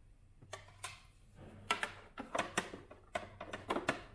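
A run of sharp clicks and light knocks, about a dozen, bunched in the second half, from hands handling a Gaggia Viva Deluxe espresso machine.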